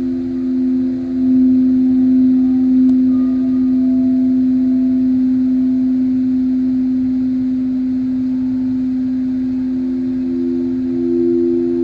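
Singing bowls sounding in long sustained tones: a steady lower tone with a higher one above it, the higher tone swelling louder near the end.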